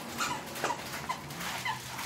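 Boxer dog mauling and shaking a plush toy, with about five short high squeaks and a few soft clicks of mouthing and rustling.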